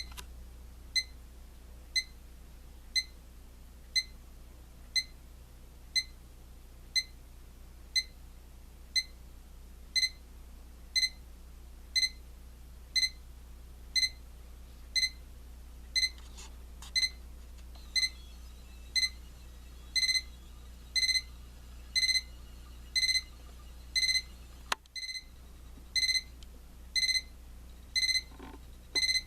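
La Crosse Technology LCD atomic alarm clock's alarm going off: a high electronic beep about once a second, the beeps growing longer in the second half.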